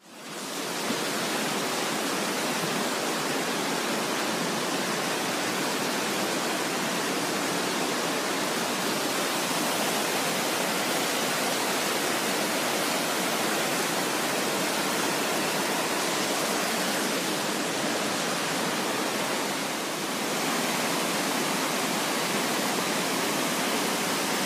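Shallow rocky stream running over stones: a steady, even rush of water.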